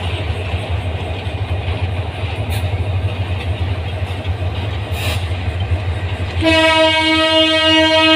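Train running with a steady low rumble, then about six and a half seconds in a diesel locomotive's horn starts sounding, one loud held note with many overtones.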